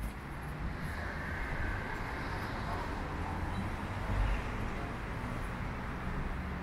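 Steady low rumble of street traffic, swelling briefly about a second in, with a louder low thud about four seconds in.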